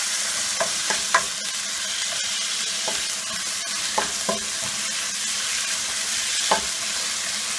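Small pieces of chicken breast sizzling as they sear and brown in hot olive oil in a frying pan, a steady hiss, while a spatula stirs them with short scrapes and taps against the pan every second or so.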